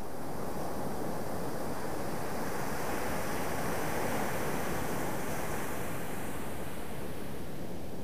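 Ocean surf on a sandy beach: a steady wash of waves that swells to a peak about four seconds in, as a wave breaks and runs up the sand, then eases off.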